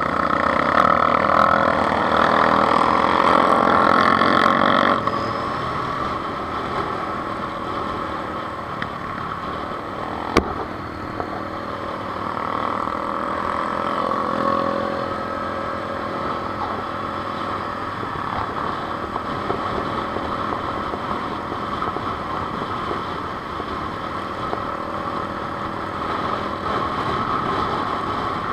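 Honda CBR600 F4i inline-four engine running at road speed, heard from the rider's helmet camera with the engines of quad bikes riding alongside and ahead. It is louder for the first five seconds or so, then steady, with a single sharp click about ten seconds in.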